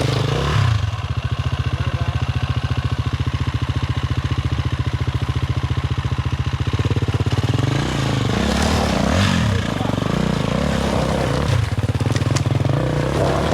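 Four-stroke single-cylinder enduro dirt bike engine idling with an even, pulsing beat, then revving up and down in short blips from about seven seconds in.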